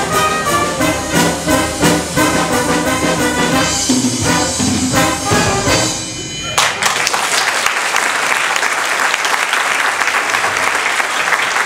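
Wind band with trumpets and saxophones playing the final bars of a piece and ending on a held chord about six seconds in, followed by audience applause.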